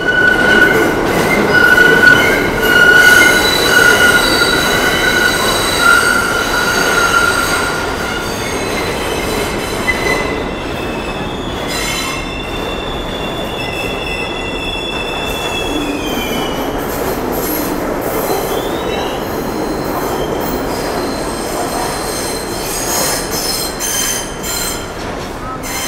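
New York City Subway train running through an underground station, its steel wheels squealing over a steady rumble. A high, steady squeal with overtones lasts through the first several seconds. Later a second, thinner squeal slides down in pitch as the train slows to a stop at the platform.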